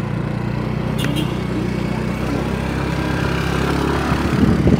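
Vehicle engine running steadily under way with road noise, heard from a passenger seat, with a brief click about a second in.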